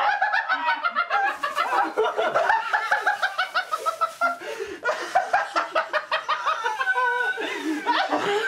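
A person laughing hard in quick, high-pitched, repeated bursts, almost without pause.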